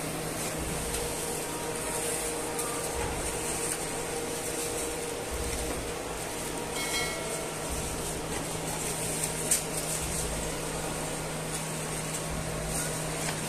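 Steady mechanical hum with a constant low tone, and a few light clicks and scrapes as a metal ladle scoops rice into foam takeaway boxes, the sharpest click about nine and a half seconds in.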